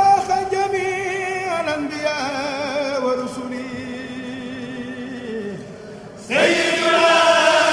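News bulletin intro jingle: chanted singing over music, with long held notes that waver in pitch, and a new, louder phrase coming in about six seconds in.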